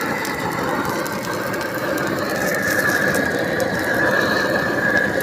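Machinery running with a continuous rumbling noise and a steady high squeal that grows louder about halfway through, with scattered faint clicks.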